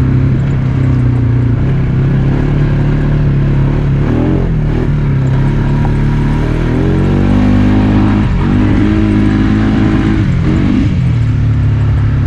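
Polaris Sportsman ATV engine running under way, its pitch dropping and climbing again several times as the throttle is eased off and opened.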